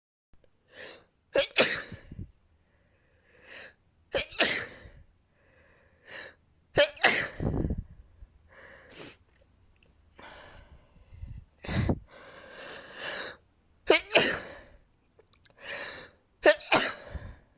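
A person sneezing repeatedly: a series of loud, sudden sneezes a couple of seconds apart, with quieter sounds in between.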